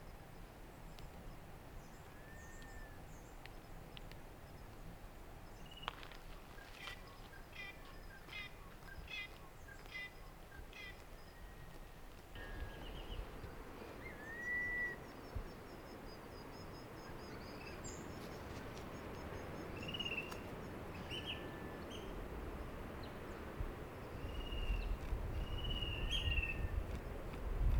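Wild birds calling outdoors: scattered short whistled chirps, a quick run of repeated notes, and a faint high trill, over a steady low background hiss. A low rumble builds over the last few seconds.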